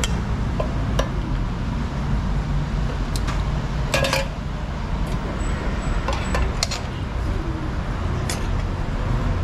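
Stainless steel tongs clinking against steel food trays and a ceramic bowl as a bowl of noodle soup is dished up: a scattered series of short clinks. Under it runs a steady low rumble of road traffic.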